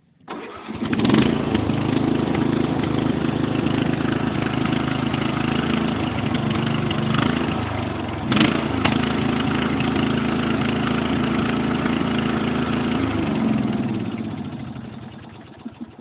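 Old Murray riding lawn mower's 14.5-horsepower engine cranked on its electric starter and catching almost at once, then running loud through its stock exhaust with a little bit of a miss, which the owner puts down to a choke that sticks. It surges briefly about eight seconds in, then winds down and stops near the end.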